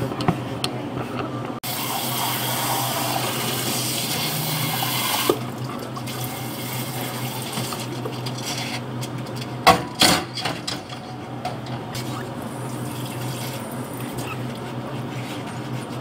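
Thick smoothie being poured and scraped out of a blender jar into plastic cups, with a few sharp knocks of the jar and spatula about two-thirds of the way through. It starts with a few seconds of steady hiss, and a low hum runs underneath.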